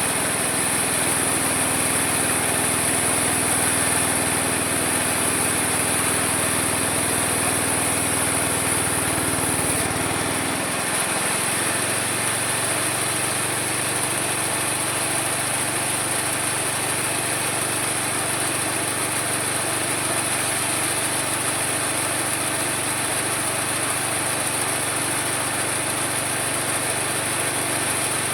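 Small engine of a homemade mini sawmill running steadily with a high whine, its note changing about ten seconds in.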